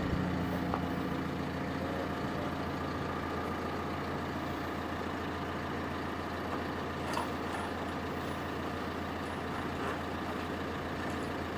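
Heavy diesel engine running steadily at a constant speed, with no revving.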